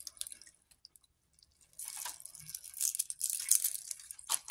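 Scour pad scratching and crunching against a wet metal necklace chain in irregular strokes, scrubbing verdigris off the links. A few light clicks come first, and the scrubbing starts about two seconds in.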